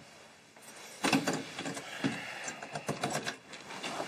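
A key working in a door lock, with a sharp click about a second in as the bedroom door is unlocked and opened. A run of smaller clicks and rustling follows.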